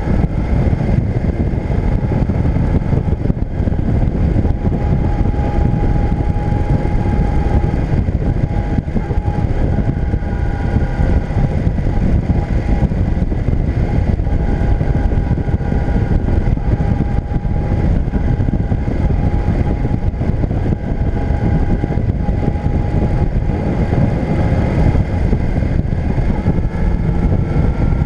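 Motorcycle engine running at a steady cruising speed on the open road, with wind and road noise, picked up by a camera riding on the bike.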